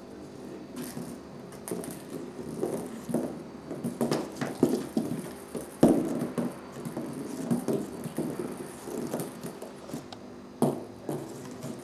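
A cat scrabbling and batting inside a cardboard box: irregular thumps and scrapes on the cardboard, with a ping pong ball knocking on the lid. The loudest knock comes about six seconds in and another sharp one near the end.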